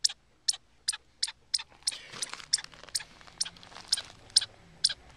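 Chipmunk hidden under the deck boards giving its repeated sharp alarm chip, about two to three chips a second, steady and unbroken: a sign that it is alarmed by the dog at the gap. A softer rustling comes in the middle.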